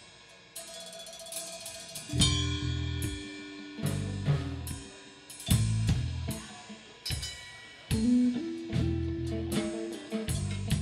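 Live rock band playing: a drum kit with cymbal crashes and heavy accented hits about every second and a half, with electric guitar and bass guitar holding notes that ring between the hits.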